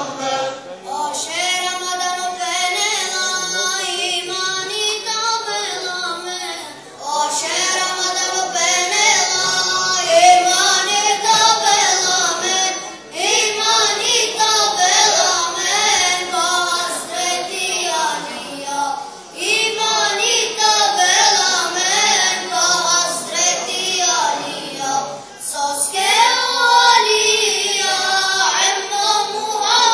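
A group of voices singing religious chants together, in phrases of about six seconds with short breaks between them.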